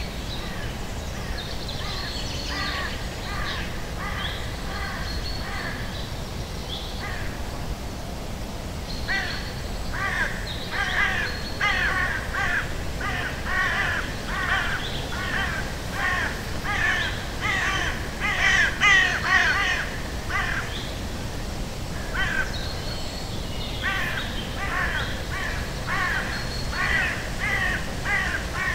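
Birds calling over and over in short harsh calls, sparse at first, then a dense run of calls that is loudest about two-thirds of the way through, a brief lull, and the calls pick up again. A steady low noise runs underneath.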